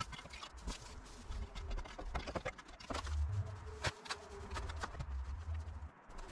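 Irregular scraping, rustling and sharp knocks of a garden rake and gloved hands clearing dry grass, weeds and debris from a garden bed.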